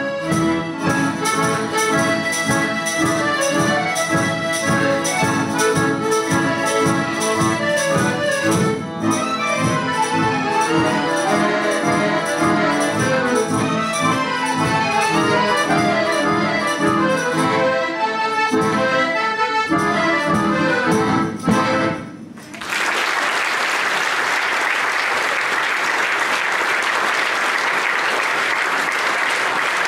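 Accordion orchestra playing, many accordions sounding chords and moving melodic lines together, up to a final cutoff about 22 seconds in. After a short gap the audience breaks into steady applause.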